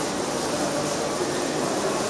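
Steady, noisy electronic drone with a few faint held tones, played over loudspeakers in a reverberant concrete hall.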